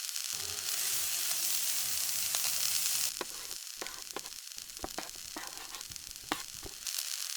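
Meat sizzling in a pan of red curry paste and coconut milk, louder for the first three seconds, then easing while a utensil stirring it knocks against the pan repeatedly.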